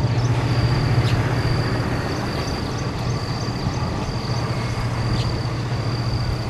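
Distant train running through the valley, a steady low drone from its locomotive carried across the open ground.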